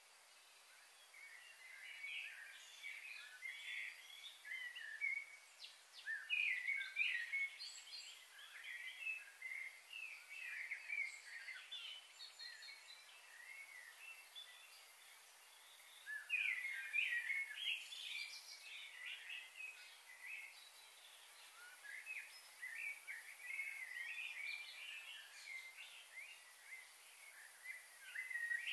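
Birds chirping and twittering in quick overlapping calls, with louder flurries about six seconds in and again around sixteen seconds, over a faint outdoor hiss.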